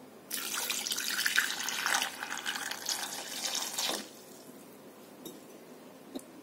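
Water poured into an aluminium pressure cooker over halved potatoes, a steady splashing that stops abruptly about four seconds in. Two faint ticks follow.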